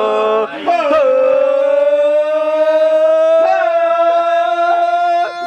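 Voices holding one long, drawn-out sung note: a rising wail that breaks about half a second in, then holds steady and slightly rising to the end.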